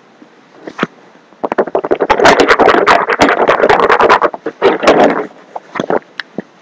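Loud crackling and rustling handling noise right at the microphone, starting about a second and a half in and running for about four seconds before dying down.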